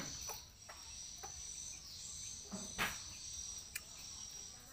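Insects buzzing steadily at a high pitch, with a few scattered clicks and a sharper knock nearly three seconds in.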